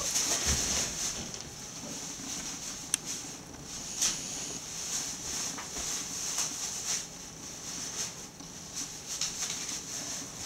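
Indian ringneck parakeet's beak clicking and tapping on a small plastic ball: a few soft, irregular clicks, one sharper about three seconds in, over a steady background hiss.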